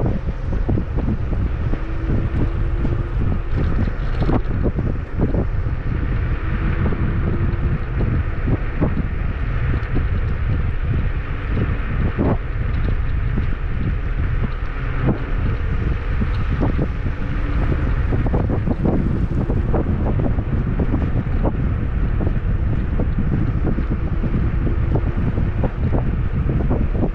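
Wind buffeting the microphone while riding a Kugoo G2 Max electric scooter, with frequent short knocks and rattles from bumps in the path and a faint whine that comes and goes.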